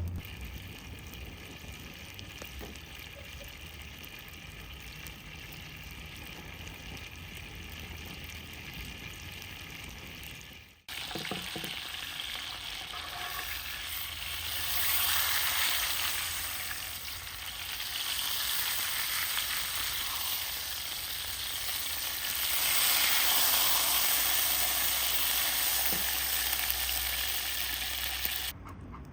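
Beef steak sizzling and frying in hot fat. It is quieter at first; after an abrupt cut about a third of the way in, the sizzle is louder and swells twice.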